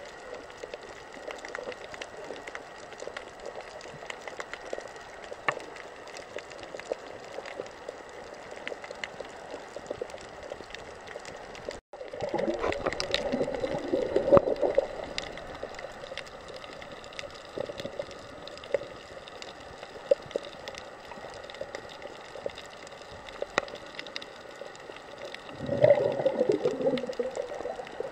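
Underwater ambience heard through a camera's waterproof housing: a steady muffled hiss with scattered faint clicks, and louder spells of water gurgling and rushing past the case about twelve seconds in and again near the end.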